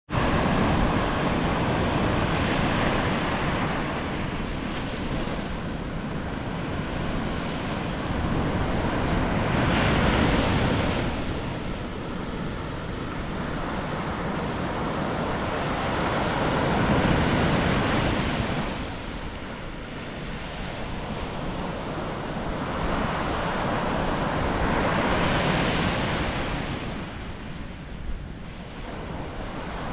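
Ocean surf breaking on a beach, the wash rising and falling in slow swells about every seven or eight seconds, with wind rumbling on the microphone.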